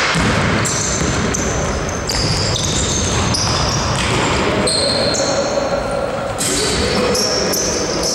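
Basketball game in a gym hall: sneakers squeaking on the court floor in many short, high-pitched chirps, with the ball bouncing and players calling out, all echoing in the hall.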